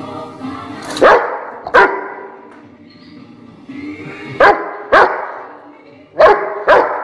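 Dog barking: six sharp barks in three pairs, over background music.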